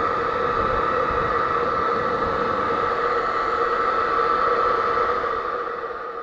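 An ebm-papst centrifugal blower running at full power: a loud, steady rush of air with two steady tones. The sound is mostly wind noise from the strong airflow, while the freshly replaced bearings stay quiet. It starts to fade near the end.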